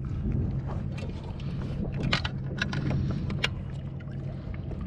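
Steady low wind rumble on the microphone, with a handful of sharp clicks and knocks from handling on the kayak while a fluke is measured, bunched about two to three and a half seconds in.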